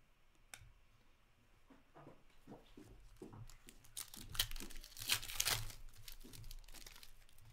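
Foil trading-card pack being torn open by hand, its wrapper crinkling. Light crinkles build from about two seconds in, and the tearing and crackling are loudest from about four to six seconds in.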